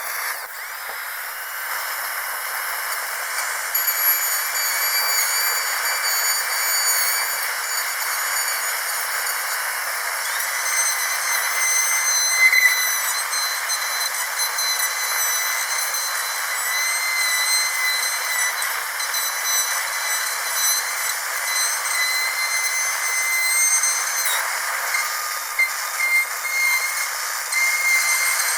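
Dentist's drill running: a steady high-pitched whine over a hiss, its pitch wavering slightly.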